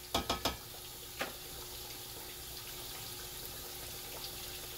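Fish fillets deep-frying in hot oil in a stainless pot: a steady bubbling sizzle. There are a few light clicks in the first second or so.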